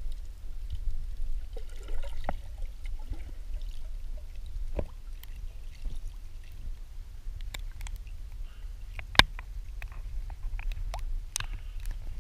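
Water lapping and trickling around a waterproof camera riding at the water surface, over a steady low rumble, with scattered small drips and clicks and one sharper click about nine seconds in.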